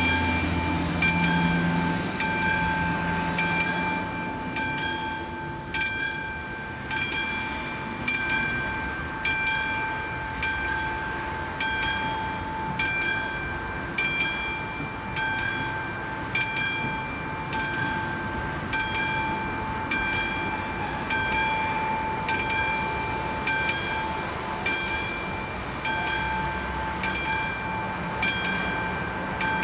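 Classic electromechanical level-crossing warning bell on an AŽD 71 crossing, striking about once a second with each strike ringing on: the crossing is closed for an approaching train. A road vehicle's engine hum is heard under the bell for the first few seconds.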